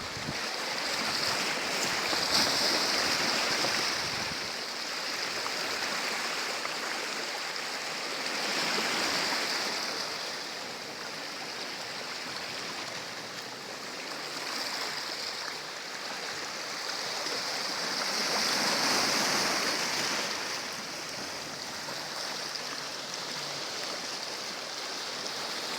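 Sea waves washing ashore: a steady rush of surf that swells and fades slowly, loudest every several seconds.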